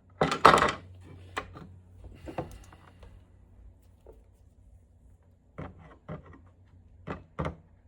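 Parts of a hot lather machine being handled and fitted back together: a brief scrape near the start, then scattered light clicks and knocks.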